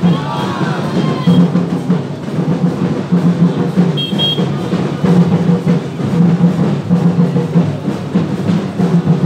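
Drums beating a steady, continuous rhythm with music, loud throughout.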